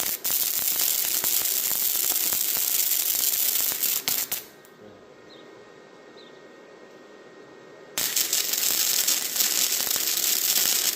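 Wire-feed welder arc crackling and hissing in two loud bursts: one running until about four seconds in, then a pause, then a second starting about eight seconds in and cutting off at the end. Two tack welds, one on each side of the joint.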